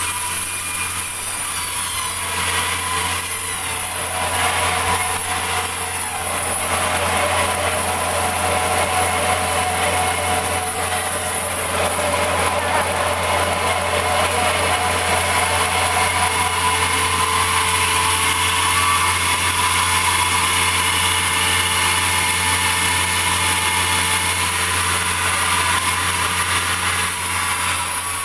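Sawmill saw running through meranti timber: a steady low machine hum with a higher whine that rises slowly in pitch about halfway through.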